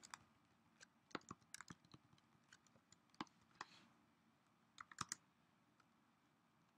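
Computer keyboard being typed on as a terminal command is entered: faint, irregular key clicks that stop about five seconds in.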